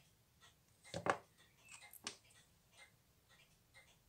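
Small metal clicks of a fine steel watchmaker's tool working on a watch movement, with two sharper clicks about a second and two seconds in, over faint, regular ticking.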